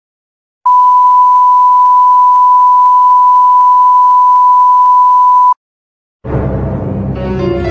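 Censor bleep sound effect: one loud, steady, pure beep tone held for about five seconds, starting and stopping abruptly. Music begins near the end.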